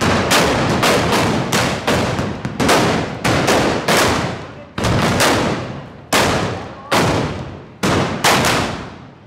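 Black-powder arquebuses firing blank charges one after another, about two sharp bangs a second. Each bang rings and dies away between the buildings of a narrow street.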